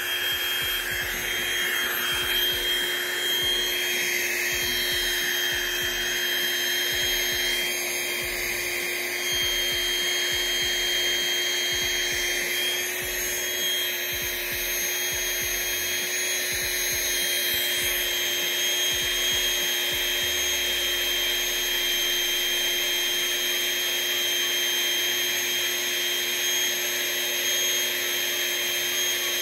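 Small handheld battery-powered air inflator running steadily with a constant motor hum, blowing air into an air mattress as it fills.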